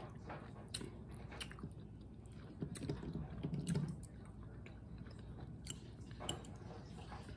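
Close-up mouth sounds of a person chewing soft, chewy chitterlings, with scattered sharp clicks that fit a metal fork tapping a glass bowl. A low hum-like sound, the loudest part, runs from about two and a half to four seconds in.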